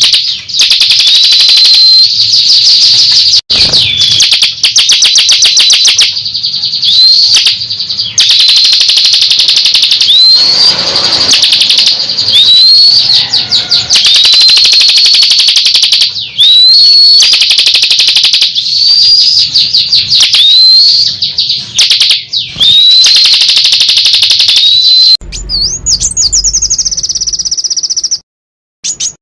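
Songbird song from a 'masteran' tutor recording for caged songbirds, played loud: fast, dense trills broken every second or two by a clear upslurred whistle. Near the end it changes to a different warbling phrase, followed by a short break.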